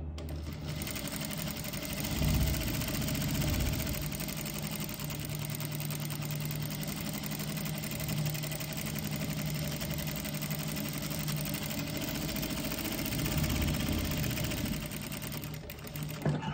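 Industrial flatbed sewing machine running at a steady speed, stitching a seam through a cotton neck piece. It starts just after the beginning and stops near the end.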